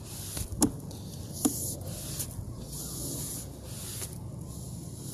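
Sewer inspection camera's push cable being fed down the pipe: a rubbing hiss that comes and goes, with a few sharp clicks, over a low steady hum.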